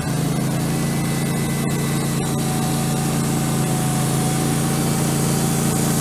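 Wood-Mizer LT15 Go portable sawmill's engine running steadily, with a faint high whine over the engine note.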